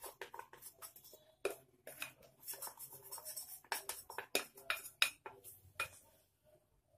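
Glass bowls clinking and knocking together in a run of irregular light taps as maida flour is shaken out of a small glass bowl into a larger glass mixing bowl, with a soft rustle of the falling flour.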